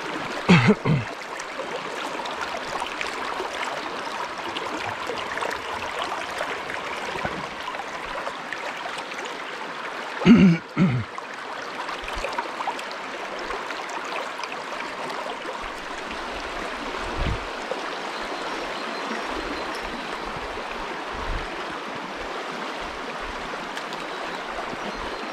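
Shallow stream flowing over stones, a steady rush of running water. Two brief louder sounds close to the microphone break through it, one just after the start and one about ten seconds in.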